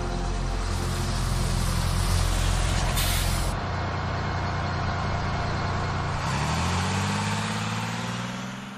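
School bus engine running in a cartoon sound effect, with a short sharp hiss of air brakes about three seconds in. About six seconds in the engine note rises as the bus pulls away, then fades out at the very end.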